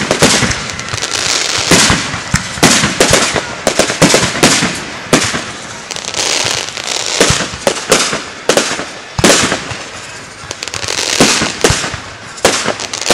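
Aerial fireworks display: shells bursting in quick succession, bang after bang, over a continuous crackle.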